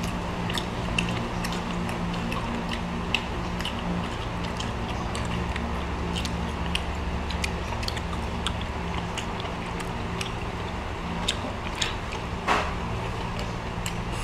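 People eating grilled shrimp by hand: chewing, with scattered small clicks and crackles as shells are peeled and bitten, over a steady low hum.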